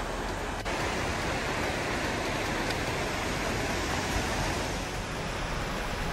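Steady rush of a waterfall and the shallow mountain creek below it running over rocks, loud and even.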